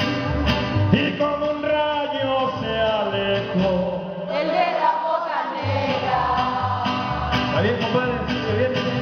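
Mariachi band playing live: strummed guitars and a rhythmic bass line under trumpets, with singing. The bass drops out briefly about halfway through, then the beat comes back in.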